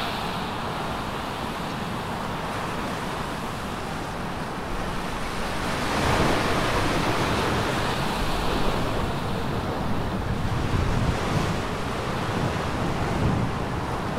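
Sea surf washing in steadily, growing louder about six seconds in, with wind buffeting the microphone.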